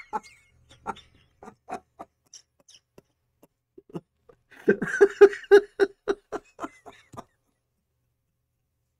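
A man laughing hard in short, separate breathy bursts. They start sparse, build to a quick run of louder pulses past the middle, then stop.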